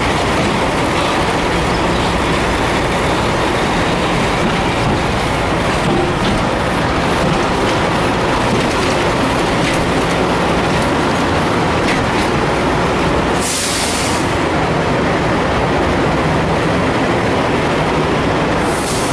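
Loud, steady rumbling noise with no clear pitch, broken by a short sharp hiss about thirteen and a half seconds in and another near the end.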